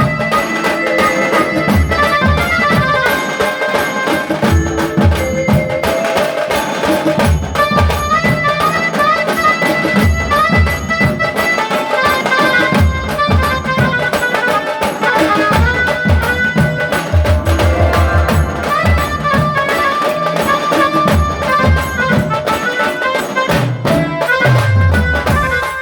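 Tasa drum band playing traditional folk music: loud, steady drum strokes under a held melody line, with a quick drum roll about two thirds of the way in.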